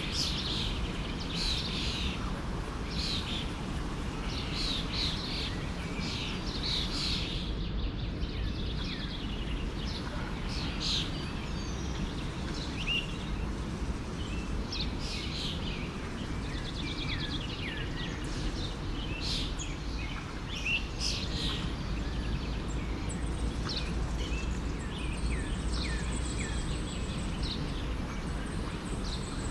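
Forest stream flowing steadily, with small birds chirping and calling over it in frequent short notes.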